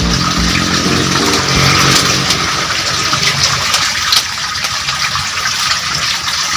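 Steady rushing, gushing water, with the tail of background music fading out over the first few seconds.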